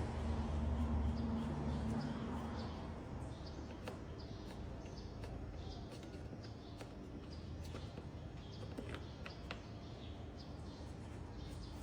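Scattered light clicks and short squeaks of a screwdriver backing out the screws of a car's air filter housing, over a low hum in the first two or three seconds.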